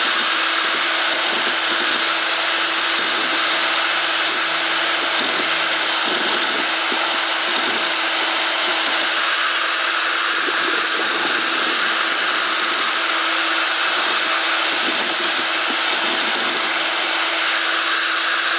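Electric drill running steadily under load, spinning a 3D-printed mixing paddle on a steel rod through cement slurry in a plastic bucket, with a constant hum; it cuts off suddenly at the very end.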